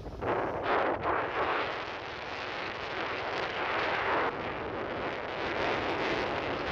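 Wind buffeting the microphone, an uneven rushing noise that swells in gusts, strongest about a second in.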